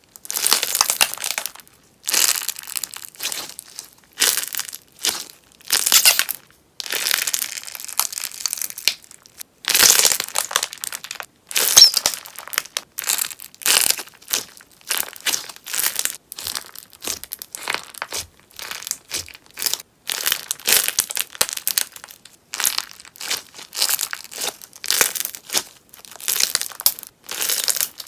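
Crunchy popping sponge slime crackling and popping in repeated bursts as it is worked, each burst lasting about half a second to a second, one every second or two.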